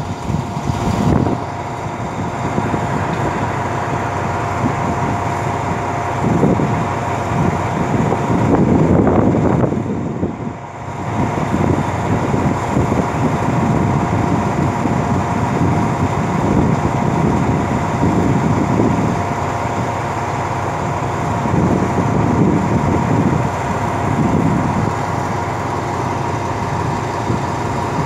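A diesel-hauled passenger train standing at a station platform with its engine idling: a steady hum carrying two constant tones, with irregular louder rumbling swells over it.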